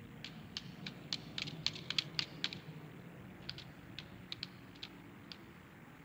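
Small sharp switch clicks: a rapid, irregular run of about a dozen in the first two and a half seconds, then a few more spaced out, over a low steady hum.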